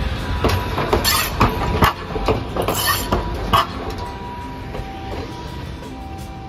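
Hiroden 800-series streetcar (car 806) passing close by, its wheels knocking over the crossing rails of a track junction. A run of sharp clacks comes between about half a second and three and a half seconds in, over a low rumble that eases as the tram moves away.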